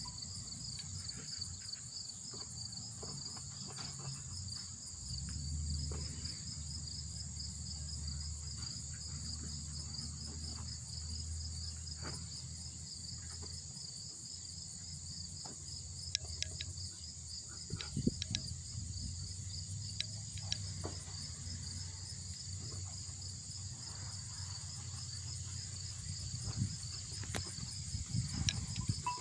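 Chorus of singing insects: a fast, even pulsing trill with a steady higher buzz above it. A low rumble and a few faint clicks sit underneath.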